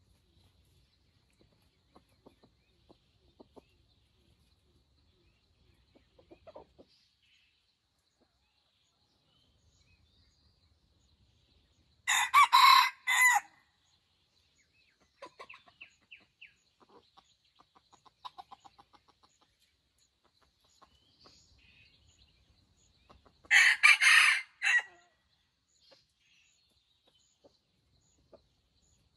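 Red junglefowl rooster crowing twice, short shrill crows about eleven seconds apart, with quieter rapid clucking between them.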